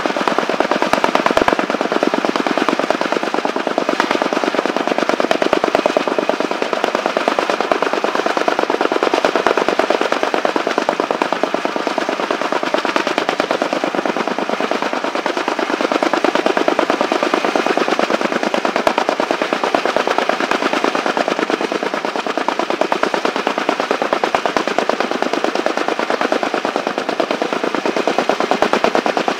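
Kaman K-MAX helicopter with intermeshing twin rotors, its blades beating in a rapid, steady chop while it hovers close by with an underslung load.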